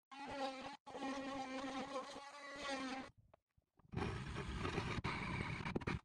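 DeWalt oscillating multi-tool running with a steady high buzz as it cuts through the vanity unit's board, stopping about three seconds in. After a short gap, a cordless drill with a hole saw runs with a rougher grinding noise as it bores a hole through the unit's board.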